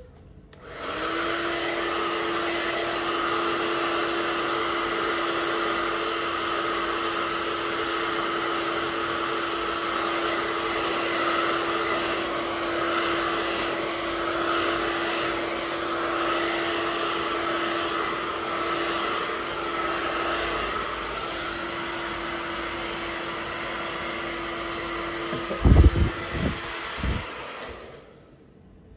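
Handheld hair dryer switched on about a second in, blowing steadily with a constant hum under the rush of air. Near the end a few low thumps come just before it switches off.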